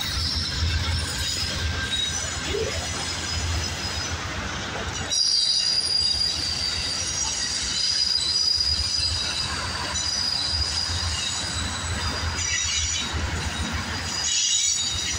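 Amtrak passenger train passing close by: the trailing GE P42DC diesel locomotive, then Superliner bi-level cars rolling past with a steady low rumble. High, steady steel-wheel squeal against the rails grows strong from about five seconds in.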